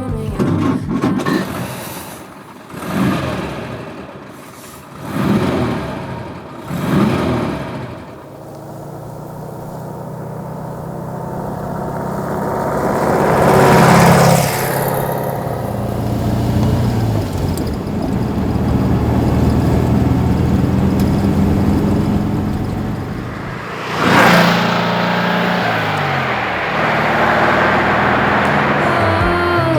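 1954 Porsche 356 pre-A's air-cooled flat-four engine: three short rev blips, then a long climb in revs and steady running under way, with another sharp surge in revs about three-quarters of the way through.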